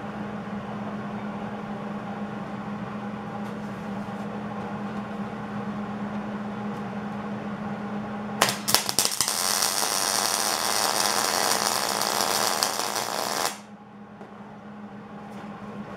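A steady low hum, then about eight and a half seconds in a MIG welder's arc strikes with a few stuttering cracks. It runs steadily for about four seconds, tack-welding a corner of steel angle iron, and cuts off sharply.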